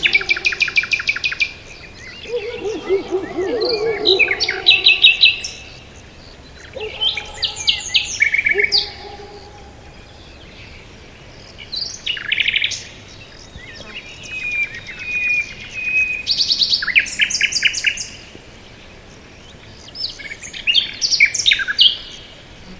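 Several songbirds singing, with short phrases of fast high trills and chirps every few seconds and quiet gaps between. A lower warbling call joins during the first few seconds.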